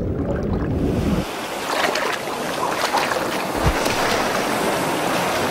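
Sea water splashing and churning at the surface as dolphins break through, over a steady rush of open-water noise. A low rumble under it cuts off about a second in.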